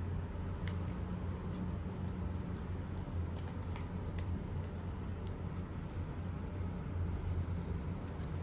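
Scattered light clicks and rustles of a Blu-ray case and its packaging being handled, over a steady low hum.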